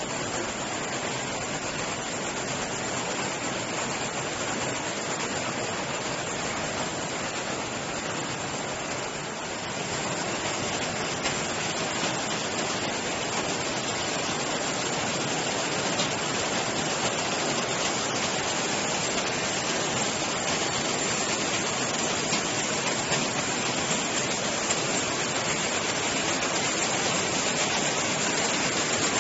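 Double Z bucket elevator with plastic buckets running: a steady, even mechanical noise with a few faint ticks, slightly louder from about ten seconds in.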